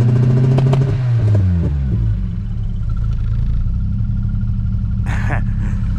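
Volkswagen Golf 2 GTI 8-valve four-cylinder engine revved and held against an add-on ignition-cut rev limiter set at about 3000 rpm, stuttering rapidly at the cut. It drops back to a steady idle after about two seconds.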